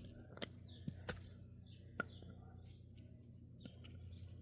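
A few faint, light taps of metal on stone, about four in the first two seconds, from a hammer and chisel being worked on a geode, over a low steady hum.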